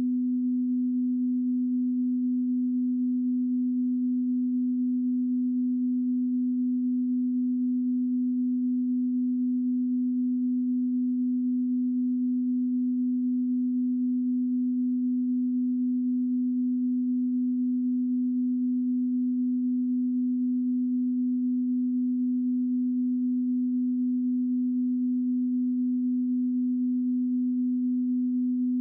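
A single steady, low electronic tone, unbroken and unchanging, with a faint higher tone above it: a TV station's off-air tone after the broadcast has ended.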